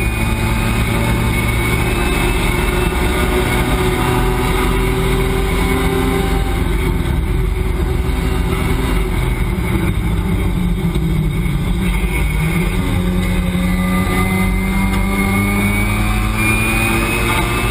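Race car engine heard from inside the cockpit, running hard at high revs along a straight. The revs drop as the car slows for a corner and climb again near the end, over steady wind and road noise.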